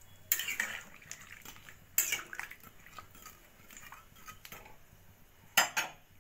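Metal spatula stirring cubed purple yam in water in a metal karahi, scraping and knocking on the pan: three sharp clatters, near the start, about two seconds in and near the end, with light clinks between.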